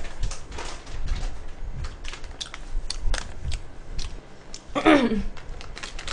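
Close-up chewing and mouth sounds: irregular small clicks and crunches, with a short falling voiced 'oh'-like sound about five seconds in.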